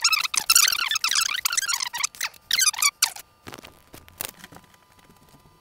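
Sped-up audio of the 200X time lapse: a rapid, high-pitched squeaky chatter that stops about three seconds in, followed by a few faint clicks over a thin steady tone.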